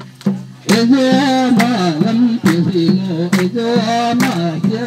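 A group of men and women singing a chant-like dance song together, with sharp knocks at uneven intervals.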